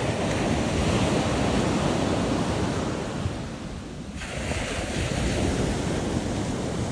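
Ocean surf washing onto the beach, with wind buffeting the microphone. The rush of water swells, eases off about four seconds in, then builds again.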